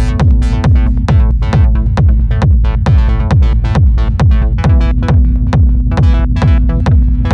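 Minimalist techno played live on a Maschine MK3 groovebox and MiniLab 3 keyboard: a steady, fast kick drum with a falling pitch under sustained synth chords and sharp clicky percussion. A held low synth note drops out about a second in and comes back about two-thirds of the way through.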